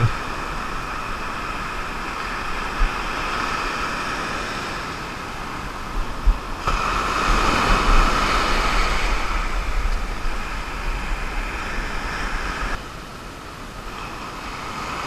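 Surf washing up on a sandy beach, with wind buffeting the microphone. The wash swells louder about halfway through and drops back a couple of seconds before the end.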